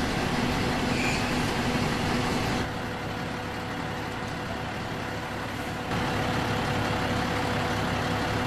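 An engine running steadily with a low hum over a wash of outdoor noise. The level drops sharply about two and a half seconds in and jumps back up about six seconds in.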